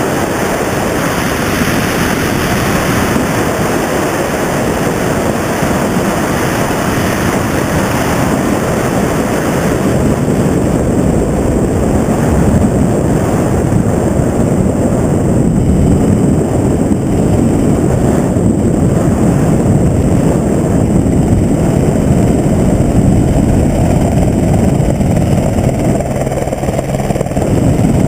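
Helicopter running close by: loud, steady engine and rotor noise that grows a little louder about ten seconds in.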